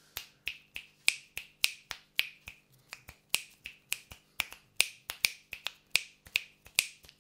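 A person's fingers snapping over and over, about three sharp snaps a second, with small uneven gaps between them.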